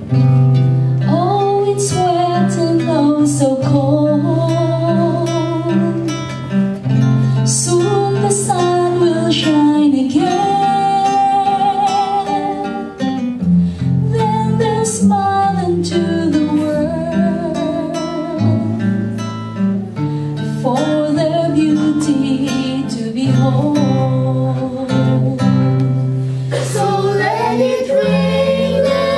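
Gospel song: a singer's melody over guitar accompaniment and steady, sustained bass notes.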